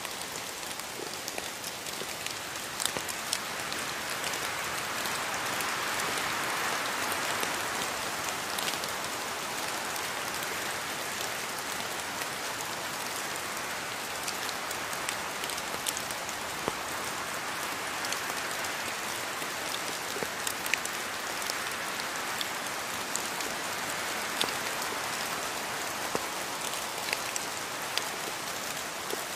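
Steady rain falling in a rainforest: an even hiss of rainfall with many separate drops ticking sharply throughout, swelling slightly a few seconds in.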